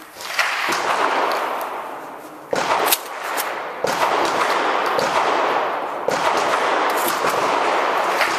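Shotgun firing about five shots at uneven spacing, each followed by a long echoing tail.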